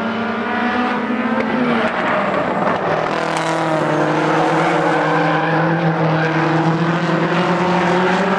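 Racing engines of two Volkswagen Golf stock cars of the 1660 Modifieds class, held at high revs as the cars run close together; their notes shift about two seconds in, then hold steady.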